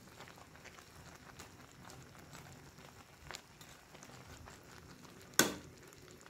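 A metal ladle knocks once sharply against a wok of noodle soup about five seconds in, over faint ticking from the soup in the pan.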